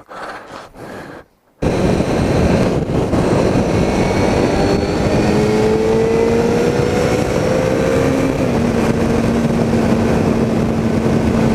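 Motorcycle riding at speed, heard from a helmet-mounted camera: a steady rush of wind noise over the engine's drone. The engine note climbs slowly and then steps up about two-thirds of the way through. It follows a brief dropout about a second and a half in.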